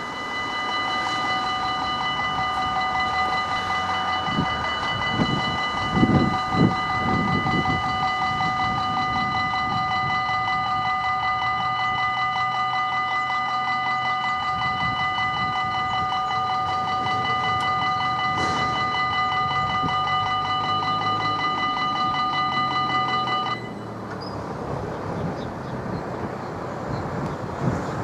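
Level-crossing warning bell ringing: a rapid, steady electronic ding of several pitches that sounds while the barriers lower and cuts off abruptly near the end, as the barriers reach the down position. A couple of low thumps come about six seconds in.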